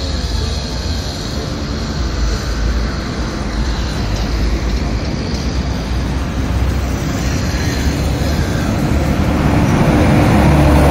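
City road traffic led by a bus driving up and passing close, its engine and tyre noise building, loudest near the end, with a steady drone as it goes by.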